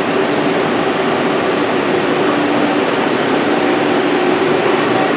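Steady hum and rushing noise of running machinery, with two steady low tones held throughout.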